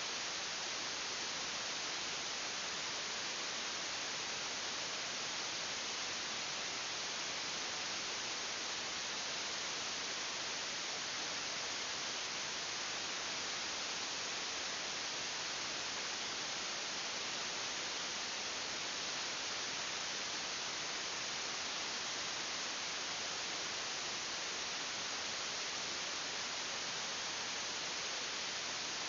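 Steady, unchanging hiss with no distinct events.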